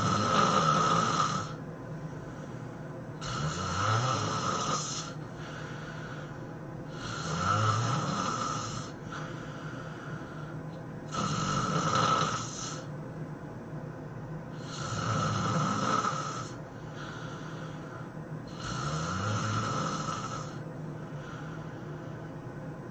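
A person snoring loudly, a long rasping snore about every four seconds, six in all, with quieter breathing sounds between them.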